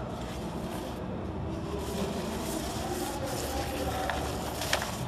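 Clear plastic packaging film rustling and crackling as it is handled and drawn over the rollers of a liquid packing machine, over a steady low hum, with one sharp click near the end.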